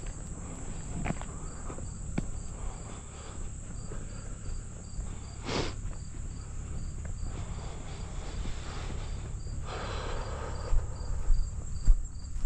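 Insects chirping: a regular pulse about twice a second over a high steady drone, with a low steady rumble underneath and a few scattered knocks and a brief rustle.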